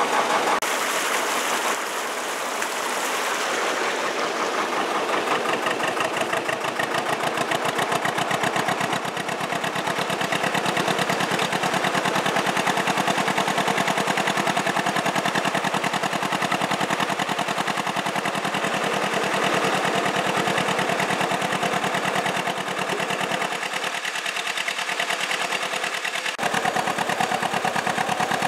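Diesel engine of a working narrowboat running at low revs, a fast, even exhaust beat. For the first few seconds, water rushes through the lock gates.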